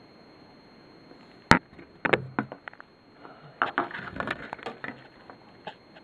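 Handling noise on the recording device: a sharp knock about a second and a half in, then scattered clicks, and a dense run of clicks and rubbing as the device is swung about.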